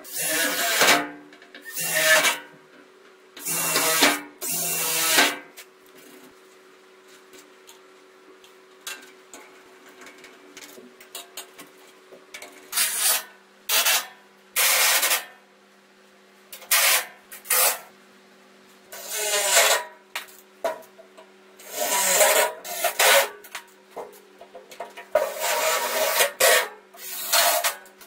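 Cordless drill-driver running in short bursts of about a second, a dozen or so times with pauses between, driving screws.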